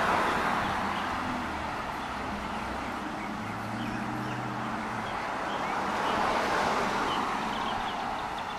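Car driving along a street: steady tyre and road noise over a low engine hum, swelling louder twice, at the start and again about two-thirds of the way through.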